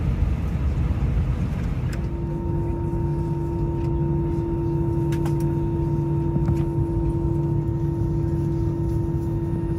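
Airbus A320 cabin noise: a steady low engine and airflow rumble, with a steady engine tone joining about two seconds in, and a few faint clicks.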